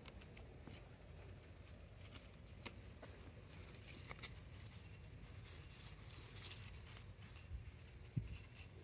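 Faint handling sounds of bean picking: leaves rustling and a few small sharp snaps as pods are pulled from the vine, over a low steady background rumble.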